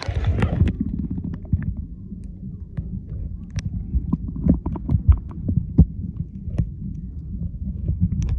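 River water heard through a submerged microphone: a muffled low rumble with scattered clicks and knocks, the higher sounds cut off, starting suddenly as the microphone goes under.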